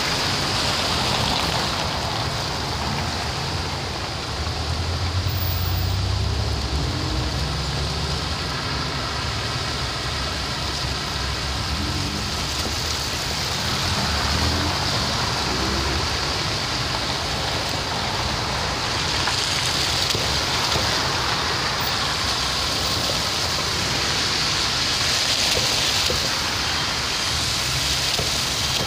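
City traffic on a wet, slushy road: a steady hiss of tyres on wet asphalt with car engines running, and a deeper engine rumble through the first half.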